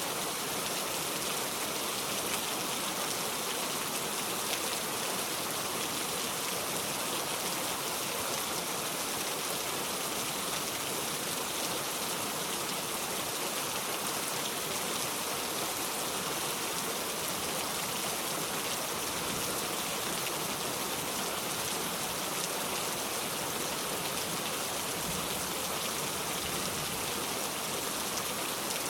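Steady rain falling: an even hiss that holds without a break.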